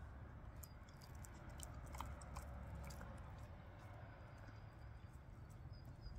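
Faint wet clicks and smacks of a dog chewing pieces of fresh meat taken from a hand, thickest in the first half, over a low rumble.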